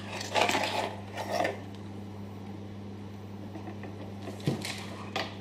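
Cardboard packaging being handled: a small cardboard box is lifted out of a carton with scraping rustles in the first second and a half, then two light taps near the end as it is set down, over a steady low hum.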